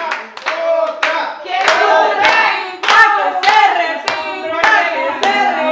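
A group clapping hands together in a steady rhythm, a little under two claps a second, with voices singing over the claps.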